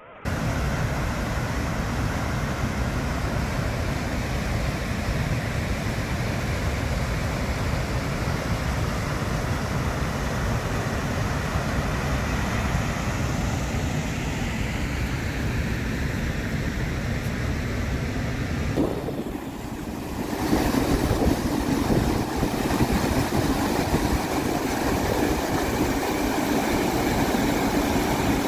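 Floodwater rushing, a loud, steady, even noise. It dips briefly about nineteen seconds in and comes back a little louder.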